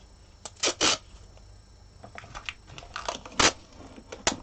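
Painter's tape being pulled off its roll and pressed around a doll's body: a few short, scratchy bursts, two close together under a second in and more around three and a half seconds and just before the end, with light handling noises between.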